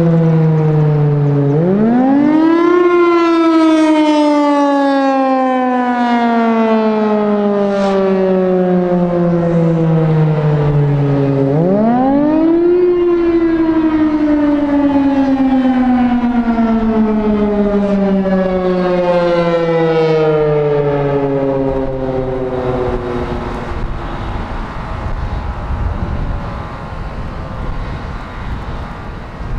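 Federal Signal Thunderbolt 1000 outdoor warning siren sounding the Attack wail: it winds up quickly, then falls slowly in pitch over about eight seconds, twice. Near the end the tone dies away, leaving a rushing noise.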